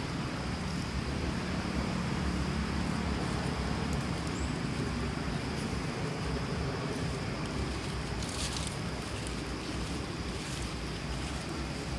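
Steady rushing outdoor background noise, rumbling low down and uneven, with a faint high steady hum above it and a few brief soft hisses near the end.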